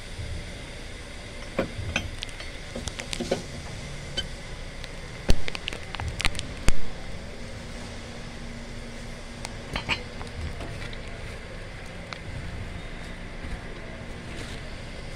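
Scattered sharp metallic clinks and knocks, as of tools and metal parts being handled, over a steady background hum; the two loudest knocks come about five and six and a half seconds in.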